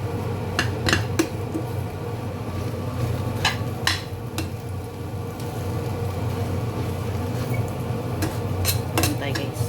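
Kitchenware clinking and knocking in a few short clusters (near the start, about three and a half seconds in, and near the end) over a steady low hum.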